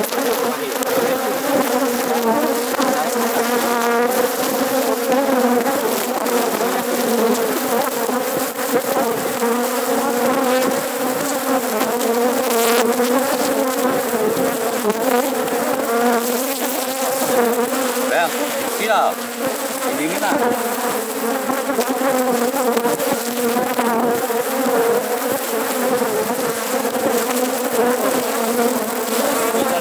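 Honeybees buzzing around an open hive: a loud, steady, many-voiced hum.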